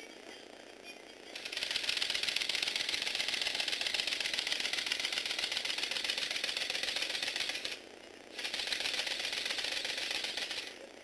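Lego Technic V8 engine walking robot running: a rapid, dense plastic clatter from its motor-driven pistons, gears and legs as it walks. It starts about a second and a half in, stops briefly near the middle of the second half, starts again and stops just before the end.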